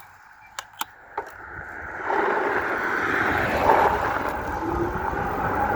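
A car passing on the road: a steady rush of tyre and road noise that builds from about two seconds in and stays loud. A few light clicks come before it.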